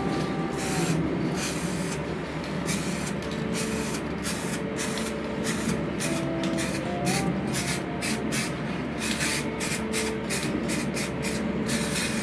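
Aerosol spray paint can spraying in short hissing bursts that start and stop many times, coming quicker, several a second, in the last few seconds.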